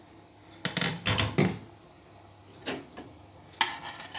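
A metal ladle knocking and scraping against a stainless steel pot while stirring thick lentil soup. A cluster of knocks comes about a second in, then two more single knocks near the end.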